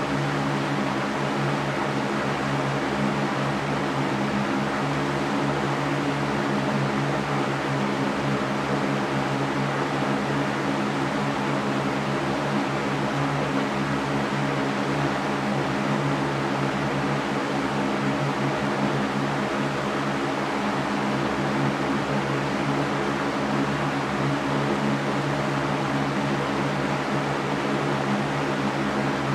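Electric fan running steadily: an even whooshing of moving air over a constant low motor hum, with no change in speed.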